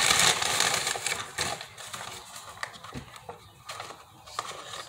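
Paper takeout bag rustling and crinkling as food is pulled out of it: loud at first, then fading after about a second and a half to a few soft crinkles and taps.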